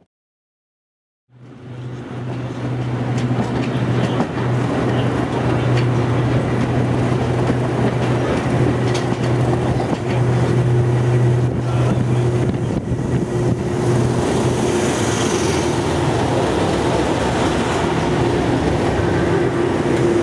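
Diesel-hauled passenger train running, heard from an open carriage window: a steady engine drone over rail noise, fading in from silence about a second in. A second diesel engine note grows stronger near the end as a Class 37 locomotive comes alongside.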